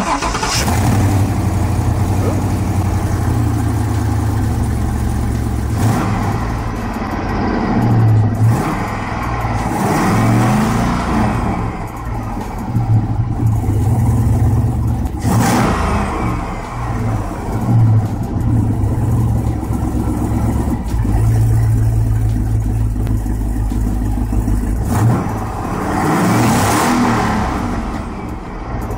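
A 5.3-litre LS V8 running, revved up several times with the revs rising and falling back to idle.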